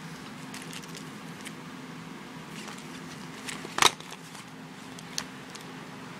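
Clear plastic packaging of a pencil case being handled, crinkling with scattered light ticks and one sharp crackle just under four seconds in, over a steady low hum.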